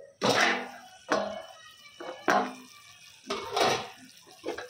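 Stainless steel pan lid lifted off a kadai and handled: about five metallic clinks and knocks, each dying away.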